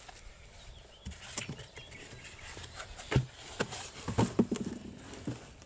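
Handling noise as white foam packing blocks are pulled off the plastic hull of a Boatman Actor bait boat and the boat is set down on its box: irregular rubbing, scraping and short knocks, with the loudest knocks about three and four seconds in.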